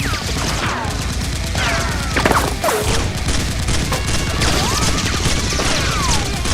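Rapid, continuous gunfire sounds from a staged Nerf battle, with several short falling whistle-like glides over the shooting.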